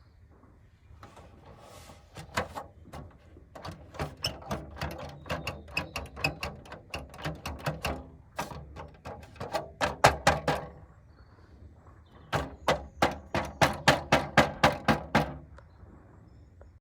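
Plastic aero wheel cover on a Tesla Model 3 rattling and knocking against the alloy wheel as the wheel turns, a rapid run of sharp clacks, about three to four a second, in two long spells over a low rumble. The rattle is the sign of a loose cover whose metal retaining springs no longer grip tightly.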